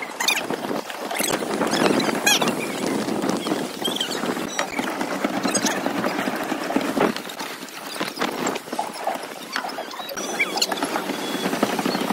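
Pedal boat under way: its paddle wheel churning and splashing water, with irregular knocks and a few short squeaks from the pedalling.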